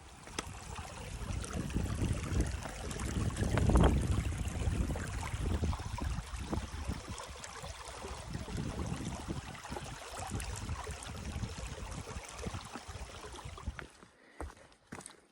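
Rushing stream water, a steady noise that swells about four seconds in and cuts off abruptly near the end.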